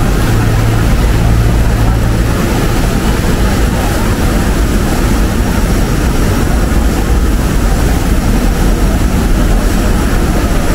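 Steady, loud vehicle rumble with a hiss over it, unbroken throughout.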